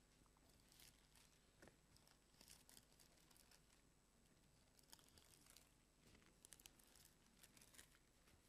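Near silence: room tone with faint, scattered rustles and soft clicks.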